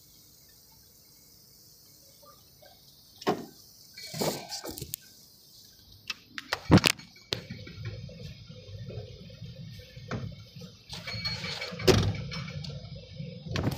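Heavy rain falling, with irregular sharp knocks and thumps and a low rumble that builds from about eight seconds in.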